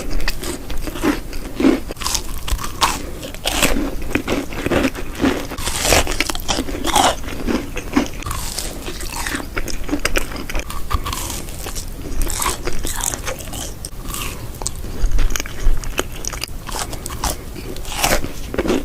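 A person chewing and crunching food, close to the microphone: irregular crisp bites and chews, several a second.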